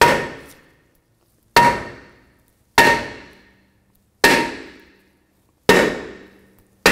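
Hammer striking a rusted rear brake rotor to break it free from the hub: six blows, roughly one every second and a half, each leaving the rotor ringing as it dies away.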